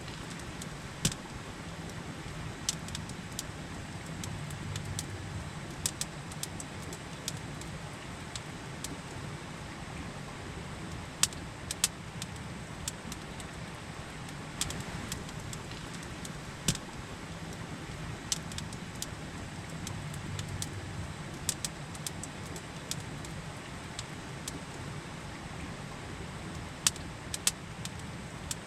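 Campfire crackling with sharp, irregular pops over the steady rush of a river.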